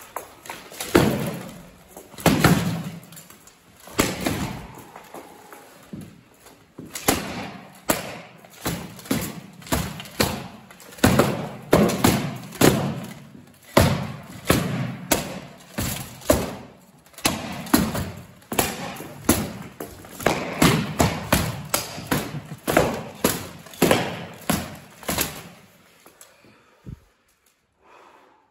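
Practice swords striking each other and plate armour in a sparring bout: a rapid, uneven run of thuds and knocks, often one or two a second, that dies away near the end.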